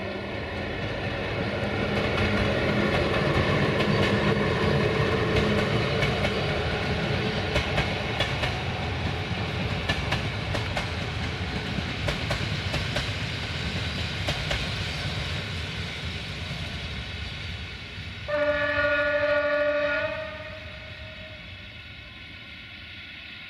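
Train passing with a locomotive running and a rumble of wheels, with rapid clicking of wheels over rail joints through the middle. Near the end the train sounds one horn blast of a little under two seconds, a chord of several steady tones, after which the train noise falls away.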